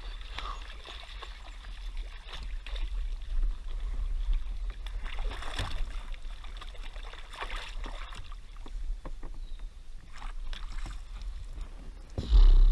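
Largemouth bass splashing and thrashing at the surface as it is reeled to a kayak and landed, with scattered sharp splashes over a steady low rumble. A loud thump comes near the end.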